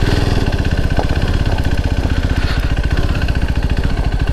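KTM RC 390's single-cylinder engine running steadily at low revs with an even, rapid pulse.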